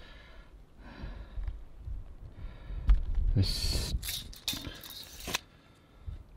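Handling noises close to the microphone: a dull knock about three seconds in, then two loud hissing rustles, the second cutting off sharply.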